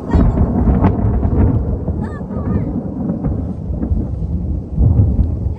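Thunder rumbling in a heavy, rolling low drone that swells about a second in and again near the end, from a thunderstorm overhead.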